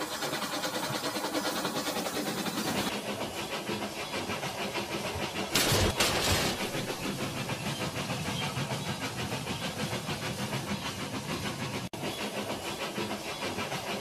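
Battery-powered toy steam locomotives running on plastic track, their motors whirring under electronic steam-engine sound effects with a fast rhythmic chugging. About five and a half seconds in, a louder hiss of steam lasts about a second.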